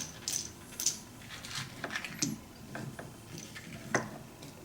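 Scattered light clicks and taps of small metal hardware and tools being handled during reassembly of a guitar multi-effects unit, about half a dozen irregular knocks with the clearest near the end.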